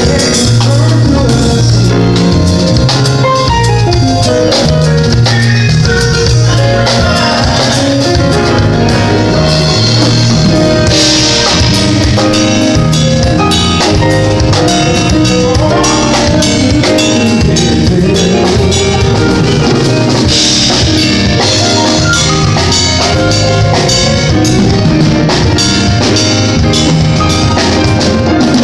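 A band playing with a full drum kit and a moving bass line, with two cymbal swells about 11 and 20 seconds in.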